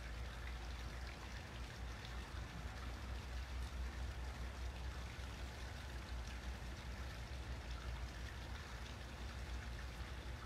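Steady outdoor background noise: an even hiss with a wavering low rumble underneath and no distinct events.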